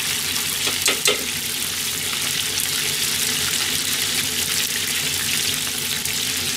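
Chicken karaage pieces sizzling steadily in hot oil in an iron deep-fry pot during their second fry, with a couple of light clicks about a second in. The cook judges doneness by the sizzle: when the sound drops, the moisture has been driven off and the chicken is ready to come out.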